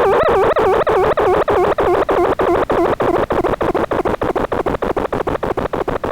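Synthesized tone from the Desmos graphing calculator, buzzy with several overtones, its pitch wobbling up and down about three times a second. From about half a second in it is chopped by brief dropouts that come faster and faster.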